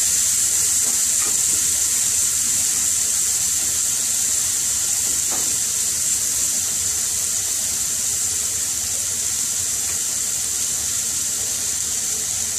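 Curry sauce with freshly added base gravy sizzling steadily in an aluminium frying pan over a gas flame, a high hiss that slowly fades.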